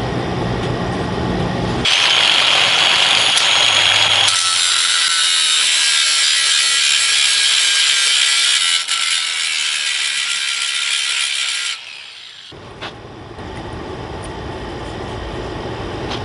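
Power grinder grinding out the stuck steel set screw of a hole saw arbor: a loud, high, hissing grind that starts about two seconds in, gets higher about four seconds in, and stops near twelve seconds, leaving a quieter steady noise.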